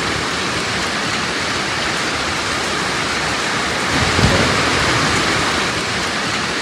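Heavy storm downpour falling in a steady, even hiss, with a brief low rumble about four seconds in.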